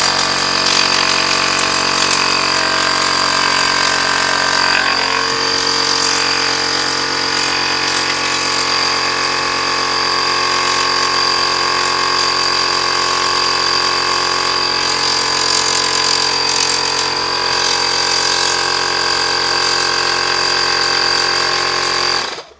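Battery-powered handheld tyre inflator running continuously, its small piston compressor motor whining steadily as it pushes air through its hose. The pitch shifts slightly about five seconds in, and it cuts off suddenly near the end.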